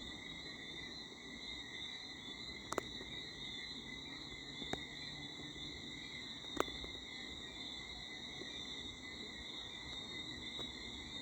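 Night chorus of crickets: a steady, unbroken high-pitched trill. Three short clicks sound about two seconds apart in the middle.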